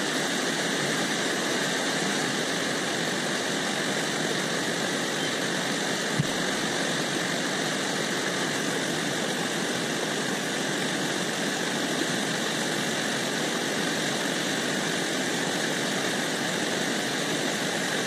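Mountain stream rushing steadily over boulders and a small cascade, an even, unchanging rush of water. A single brief knock about six seconds in.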